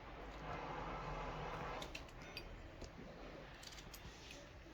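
Faint sound of a knife cutting a lemon in half: a soft scraping slice for the first couple of seconds, then a few light ticks.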